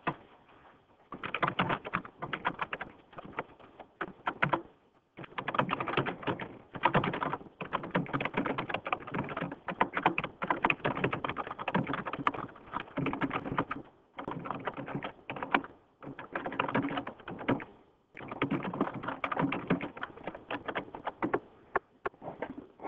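Typing on a computer keyboard: fast runs of key clicks lasting a few seconds each, broken by short pauses.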